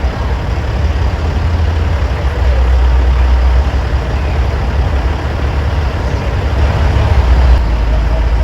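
Heavy diesel truck engine idling with a deep, steady low rumble that swells slightly a couple of times.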